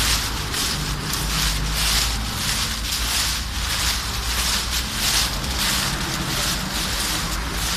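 Footsteps shuffling and crunching through a thick layer of dry fallen leaves, about two steps a second, over a steady low rumble.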